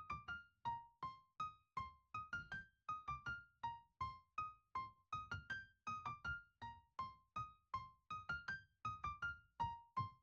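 Quiet background music: a simple melody of short single notes, about three a second, each struck sharply and dying away quickly.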